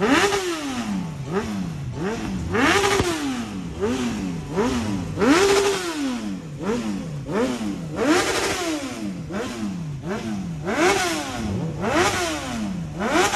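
Honda CBR919RR inline-four engine revved over and over, its note rising sharply and falling back about once a second, a few revs held briefly at the top.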